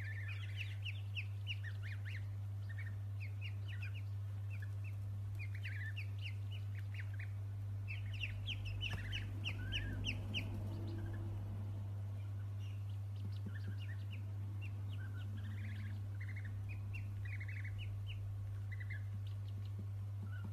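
Ducklings and goslings peeping: many short, high peeps in quick runs, now more, now fewer, over a steady low hum.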